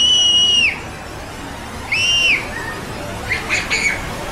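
A young girl's high-pitched shriek, held on one note and cut off about half a second in, then a second shorter shriek about two seconds in, followed by high giggling squeals.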